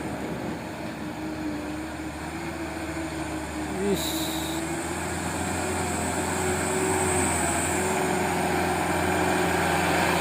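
Heavy truck engine rumbling as the truck approaches, growing steadily louder, with a thin wavering tone over it and a brief sharp sound about four seconds in.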